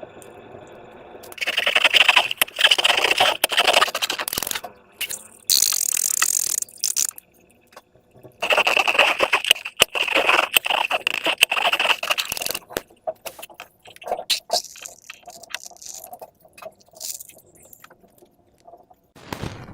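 Slime and rubber balloons being handled: crackly, scraping squishing noises in two long spells, with a short hiss between them and scattered clicks and ticks near the end.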